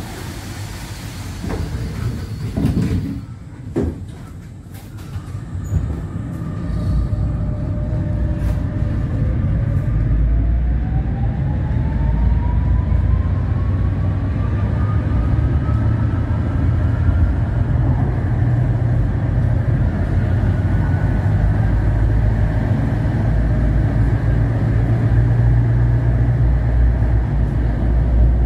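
Tram running on rails, heard from inside: a few knocks in the first seconds, then a whine that rises steadily in pitch as it picks up speed, over a low rumble of wheels on track.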